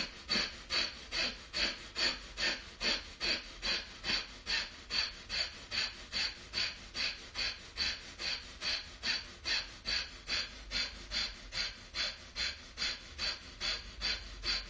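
A woman's forceful, rhythmic exhalations through pursed lips, puffing about twice a second in a steady pumping breathing exercise.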